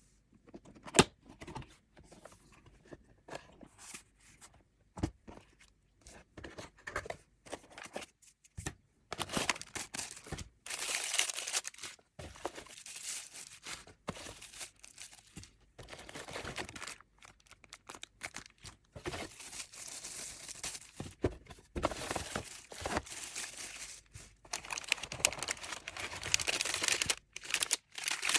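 Packaging being handled and opened: paper and plastic wrapping tearing and crinkling, with scattered taps and clicks at first, then nearly continuous rustling from about nine seconds in.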